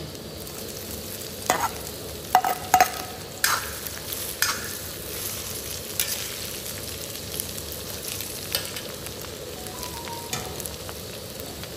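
Oil sizzling steadily in an iron karahi as shredded boiled chicken is stirred in among frying onions and capsicum. A steel ladle and utensils clink and knock against the pan several times in the first half.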